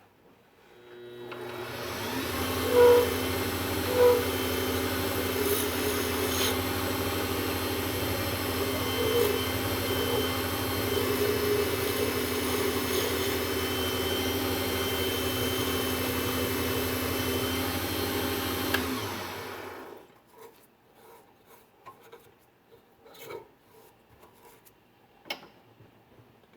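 WEN benchtop lathe spinning up and running steadily with a low hum while a turning tool scrapes an acrylic pen blank, with two louder knocks about three and four seconds in. The lathe stops about nineteen seconds in, leaving faint clicks and knocks.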